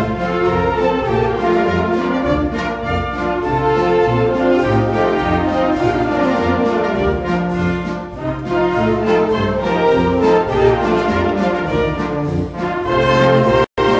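Brass band music, with brass instruments playing a melody over low sustained notes. The sound cuts out briefly near the end.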